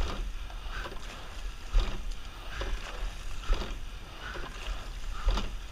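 Sweep-oar racing four under way, with a knock from the oars in their oarlocks about every 1.8 seconds, once per stroke. Water rushes along the hull and wind rumbles on the microphone.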